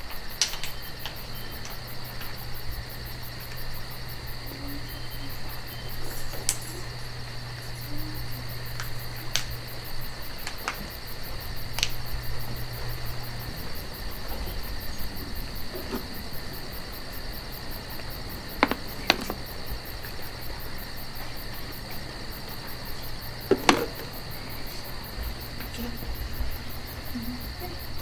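Insects chirring steadily in a high, even tone. Under it runs a low hum that stops about halfway through, and there are a few faint clicks.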